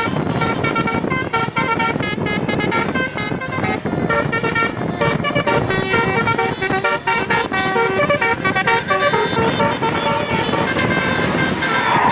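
Bus telolet horn, a Basuri multi-tone musical horn, playing a quick tune of short horn notes that change pitch every fraction of a second, over steady vehicle and street noise.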